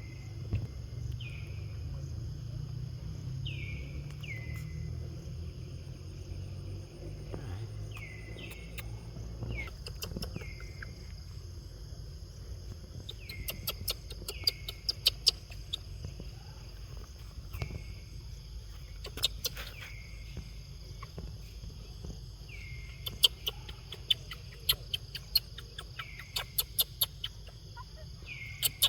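Outdoor animal calls: short falling chirps repeat every second or two over a steady high hum. From about halfway on there are bursts of sharp rapid clicks.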